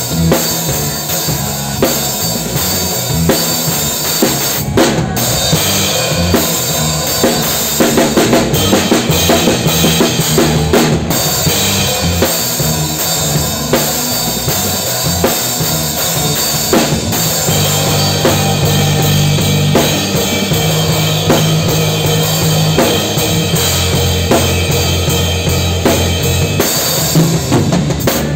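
Drum kit played in full band style during a rehearsal, with kick drum, snare and cymbals close up. Steady low bass notes sound underneath.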